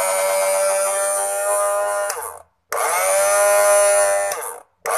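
Miyako blender motor base running with no jar, a steady motor whine, switched off and on: it cuts out about two and a half seconds in, starts again with its pitch rising as it spins up, cuts out once more near the end and starts again. It turns freely now that its seized bearing has been freed.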